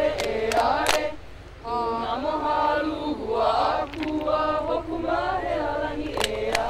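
A group of men, women and children chanting together in Hawaiian, with held, pitched lines and a short pause about one and a half seconds in.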